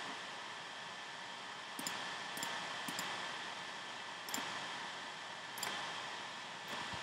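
Half a dozen sharp, separate clicks of a computer mouse, spaced about a second apart, over a steady hiss.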